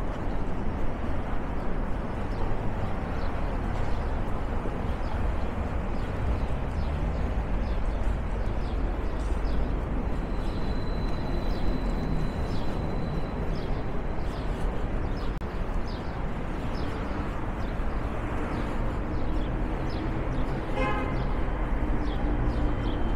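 Downtown street ambience: a steady rumble of road traffic with vehicles passing. A faint high whine comes in for a few seconds about ten seconds in, and a short pulsing tone sounds near the end.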